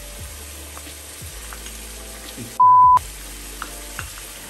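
Onion and garlic sizzling in a pot, with a wooden spoon tapping and scraping garlic out of a small glass bowl. About two and a half seconds in, a loud steady beep tone, edited in, replaces all other sound for about a third of a second.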